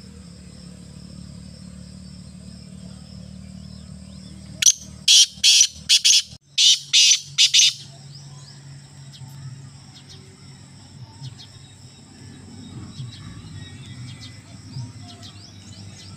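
Black francolin calling: a loud rapid series of harsh, grating notes lasting about three seconds, starting a few seconds in.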